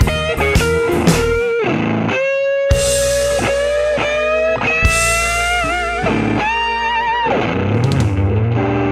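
Telecaster-style electric guitar playing a lead line through an amplifier: a few quick picked notes, then long held notes bent upward in pitch with vibrato, and near the end a held low chord.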